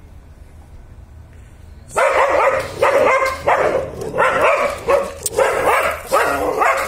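Dog barking repeatedly at a cat up on a wall. After a quiet couple of seconds, a run of about eight loud barks begins.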